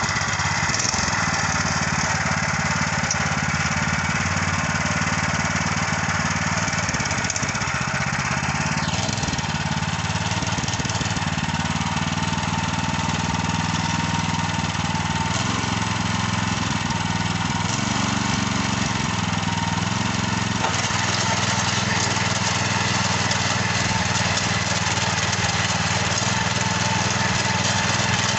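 Mini tiller's small petrol engine running under load as its rotary tines churn through hard, sticky soil. The engine note wavers up and down a few times.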